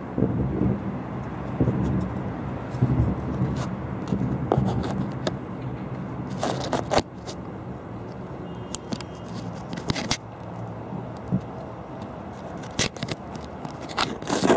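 Distant fireworks display: irregular low booms and rumble, heaviest in the first few seconds, with scattered sharp cracks later on.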